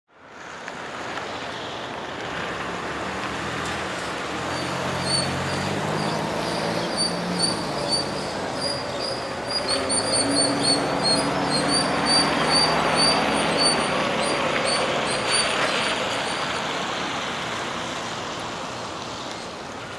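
Street traffic ambience fading in: a steady wash of vehicle engines and road noise, with a low engine hum that swells in the middle. Over it, a bird chirps repeatedly in quick short notes.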